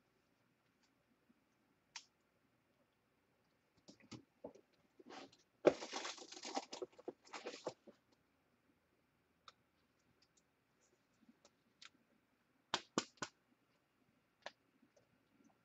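Hands handling trading cards and a plastic card holder: scattered light clicks, a burst of rustling and scraping about five seconds in that lasts a few seconds, and a quick run of sharp clicks near the end.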